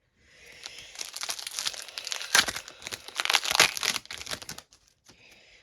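Foil wrapper of a hockey card pack being torn open and crinkled, a dense crackling that builds, is loudest around the middle, and dies away near the end.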